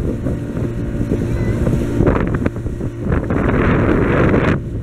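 Small skiff's outboard motor running at speed, with wind blowing across the microphone; the wind hiss grows stronger about three seconds in.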